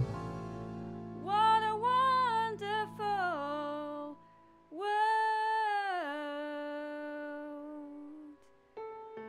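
Slow ballad: a woman's voice sings two long, drawn-out wordless phrases over soft held accompaniment chords.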